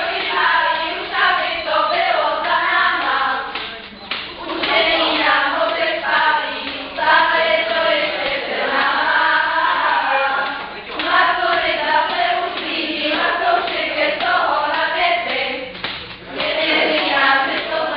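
A group of young women singing together in phrases, with short pauses about 4, 11 and 16 seconds in.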